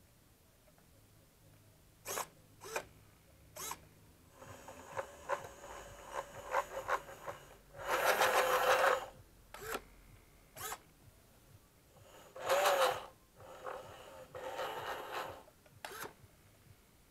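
Small electric drive motors and plastic tracks of a Dickie Snow King RC snow groomer model whirring and rattling in short stop-start bursts as it drives and turns, starting about two seconds in.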